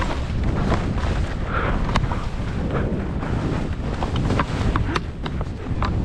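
Wind buffeting an action camera's microphone as a skier runs through deep powder, a heavy steady rumble with the hiss of skis in snow and scattered sharp clicks and knocks.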